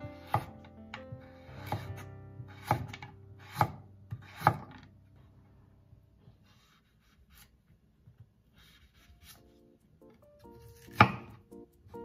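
Kitchen knife chopping vegetables on a wooden cutting board. There are five sharp knocks about a second apart as a carrot is cut, then a few faint taps, and one loud knock near the end. Background music with held notes plays under the first seconds and again near the end.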